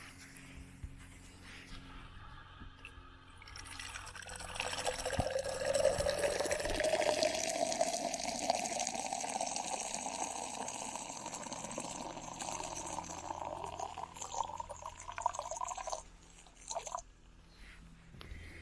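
A stream of urine filling a glass jar, the pitch of the splashing rising steadily as the jar fills. It starts about four seconds in and stops suddenly near the end.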